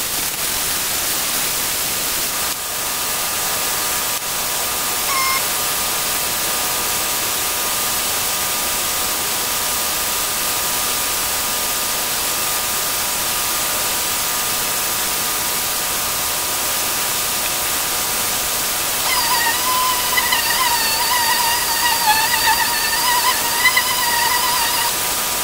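Steady hiss of background noise. Near the end a long, wavering, high-pitched whine rises over it for about six seconds.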